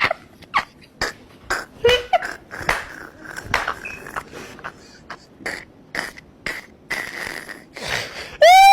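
A run of irregular sharp pops and clicks, a few a second. A loud, high cry starts near the end.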